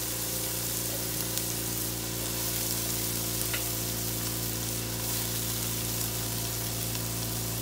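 Freshly rinsed broccoli florets sizzling steadily in a hot frying pan with sautéed onions and garlic, with a steady low hum underneath.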